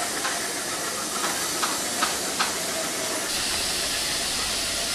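Steady hiss of compressed air escaping from a passenger coach's brake pipe through the alarm chain valve, the air leakage that follows an alarm chain pull. It grows sharper and brighter about three seconds in, with a few faint clicks.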